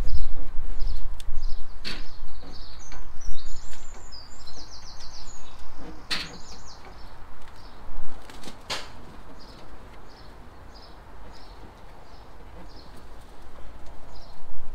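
Small garden birds chirping in a repeated short call, with one rapid trilled phrase a few seconds in. A few sharp knocks are heard, and a low rumble at the start fades away.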